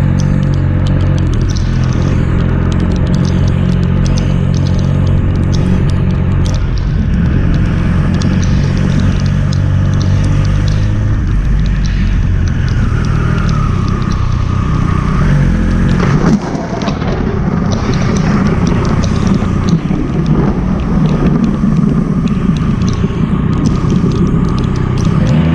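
Triumph Speed Triple 1200 RS's inline three-cylinder engine running steadily in traffic, with a brief change in engine note a little past halfway and the pitch rising at the very end as it pulls away.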